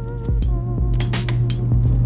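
Background music: a steady low bass with wavering held tones and a few sharp clicks.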